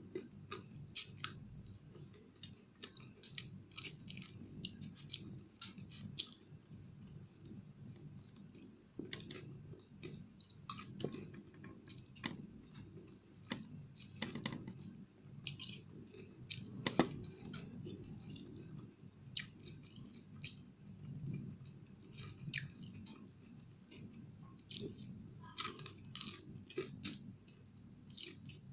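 A person chewing fried fish close to the microphone, with many short, irregular clicks all through and one sharper click about seventeen seconds in.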